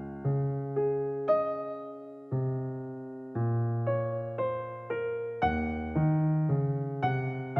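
Slow, gentle background music of piano or electric piano: single notes and chords struck about once a second, each ringing and fading away.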